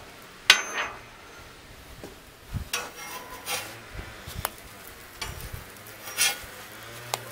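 Metal spatula scraping and clinking on a steel griddle top as pancakes are slid under and flipped: a sharp clink about half a second in, then a string of short scrapes and taps.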